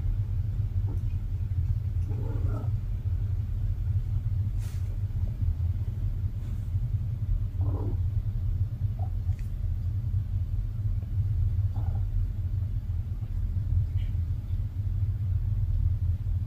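A steady low rumble, with a few faint, short cat calls over it about two, eight and twelve seconds in.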